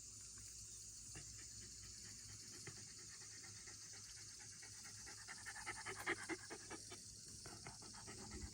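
Shiba Inu panting quickly, getting louder about five seconds in.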